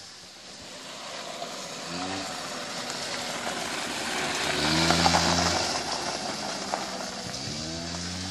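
Small engine of a children's quad bike revving in three bursts as it rounds the track, its pitch rising with each and loudest about halfway through as it passes close.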